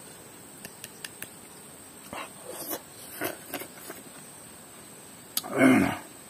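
Eating sounds from a person eating crisp star fruit chutney: light clicks of a toothpick against the stone bowl, a run of short crunching chews, then a louder noise about five and a half seconds in. A steady high insect drone runs underneath.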